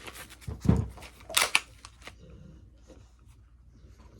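Glock 19X pistol being cleared by hand: a heavy clack just under a second in, a sharp metallic snap of the slide around a second and a half, then faint small clicks of handling.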